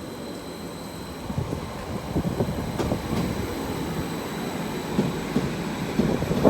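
Greater Anglia Class 755 bi-mode multiple unit moving through the platform. Its running noise grows louder from about a second in, with irregular knocks of the wheels over the track.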